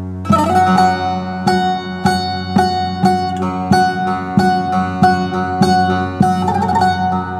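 Bağlama (Turkish long-necked saz) picked in a free-rhythm uzun hava opening in uşak makam, the picking starting about a third of a second in with strong strokes roughly every half second. A steady low drone runs underneath.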